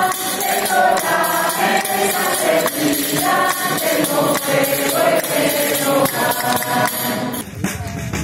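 Choir of women's voices singing a traditional Leonese folk song, accompanied by panderetas (tambourines) struck in a steady beat. Near the end the singing stops and a steady low noise takes over.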